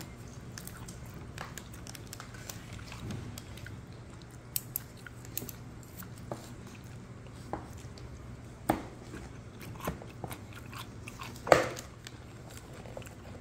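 A person chewing and biting food close to the microphone, with scattered small clicks and one louder sharp knock near the end.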